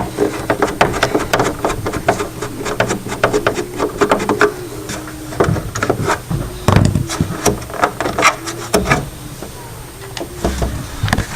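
Screwdriver backing screws out of a CRT television's back cover: many irregular clicks and scrapes of the tool against the screws and case.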